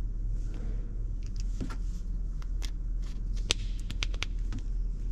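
Light plastic clicks and handling noises as a crimped metal pin on a solar cable is fitted into a plastic solar plug housing, the sharpest click about three and a half seconds in. A steady low hum runs underneath.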